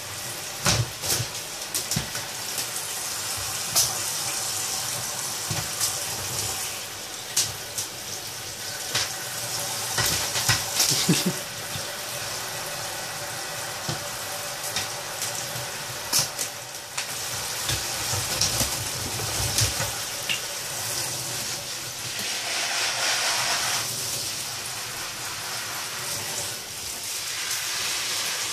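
Hand-held shower head spraying water in a steady hiss, with scattered sharp splashes and patters as the spray strikes a blue-and-gold macaw's wet feathers, a plastic bucket and the bathtub.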